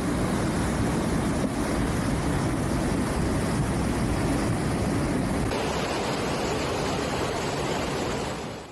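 Steady rushing noise of fast-flowing floodwater, even and unbroken, its upper hiss changing about five and a half seconds in.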